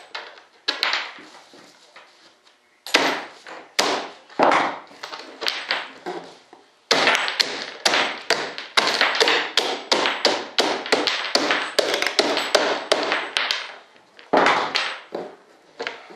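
Sharp taps and knocks on the fibreglass wing mold, worked along its seam to free the moulded wing. A few scattered taps, then a fast run of taps for several seconds in the middle, a short pause, and more near the end.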